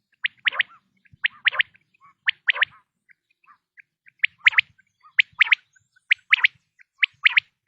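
Male common quail singing its three-note song, one short note followed by a quick double note, repeated about once a second with a brief pause midway.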